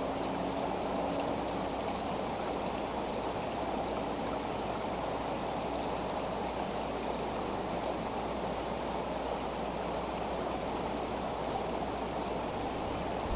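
Steady rushing noise with no distinct events, most of it low to mid in pitch.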